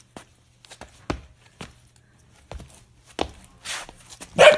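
Sneaker sole stamping on a bare floor to crush scattering baby wolf spiders: a series of sharp, irregular slaps. Near the end comes a louder, longer burst.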